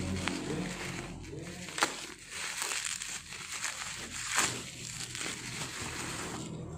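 Clear plastic packaging crinkling and rustling as it is handled and pulled apart, with a sharp tap a little under two seconds in and a louder crackle midway.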